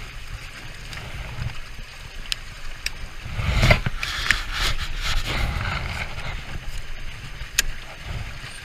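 Wind rumbling on the microphone of a raft-mounted camera. About three and a half seconds in come two seconds of rustling and bumping from clothing rubbing against the camera, and a few single clicks fall on either side.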